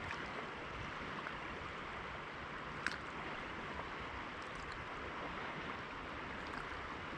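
Steady rush of river water flowing past the bank, an even hiss with no rhythm. A single small click sounds about three seconds in.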